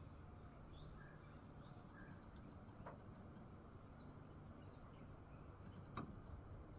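Quiet woodland ambience: a faint, steady low rumble of wind, with a few brief faint bird chirps and a couple of soft sharp clicks, one near the middle and one near the end.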